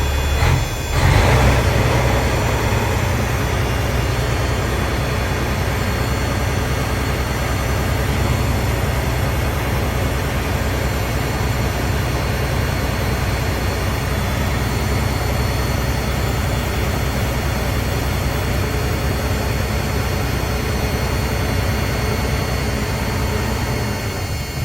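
Caterpillar C15 inline-six diesel in a semi truck starting up about a second in, then running steadily held above idle, revved to keep the fuel system primed after a fresh fuel filter and oil change.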